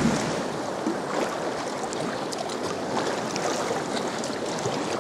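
Sea water sloshing and washing around a sea kayak's hull, a steady rush with small splashes scattered through it.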